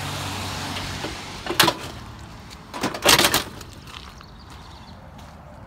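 A passing minivan's engine and tyres fading in the first second, then two loud metallic clanks and rattles of a sheet-metal stove body being handled, about a second and a half apart, the second longer.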